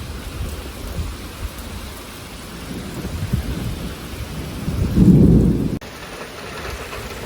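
Heavy rain falling during a severe thunderstorm, with a low thunder rumble that builds about four seconds in, peaks as the loudest sound and cuts off abruptly.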